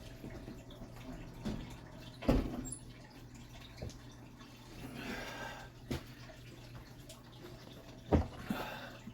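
Utensil handling a microwave meal in its plastic tray: a few sharp knocks, about four, with soft wet stirring and scraping sounds between them.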